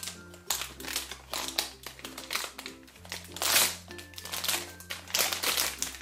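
Foil blind-bag packaging crinkling and tearing as it is opened, in repeated crackling bursts, loudest about three and a half and five seconds in, over light background music.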